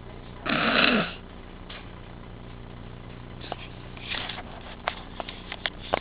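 One loud breath from a person, about half a second long, near the start, then a few faint clicks and rustles and a softer breath about four seconds in.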